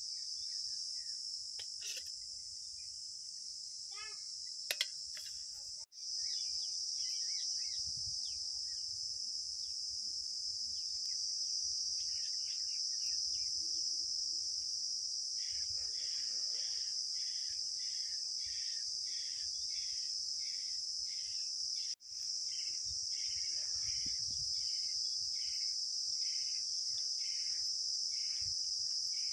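Steady high-pitched insect chorus, breaking off for an instant twice. From about halfway a lower, repeated chirp comes about twice a second.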